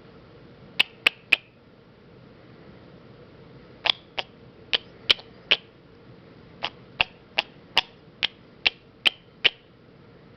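Sun conure making kiss sounds: short sharp smacking kisses, three in quick succession about a second in, then a run of a dozen or so at roughly two a second.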